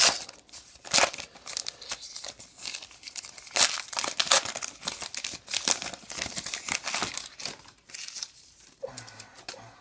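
A baseball-card pack's wrapper being torn open and crinkled by hand, in a run of irregular sharp crackles and rustles, followed by the cards being slid out of it.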